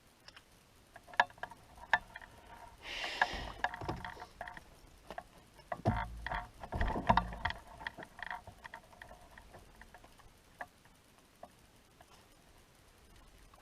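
Close handling noise from retying a jig on fishing line: scattered clicks and taps, a short hiss about three seconds in, and a few low thumps around six to seven seconds in.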